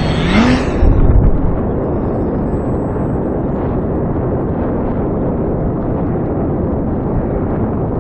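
Electric motor whine rising in pitch at the start, then a heavy thump of wind buffeting the microphone about a second in, followed by steady wind rush on the microphone.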